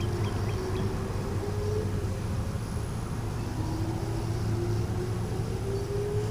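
Distant outdoor warning sirens wailing faintly: a tone that rises slowly over about two seconds, falls away, and rises again. Underneath runs a steady low rumble.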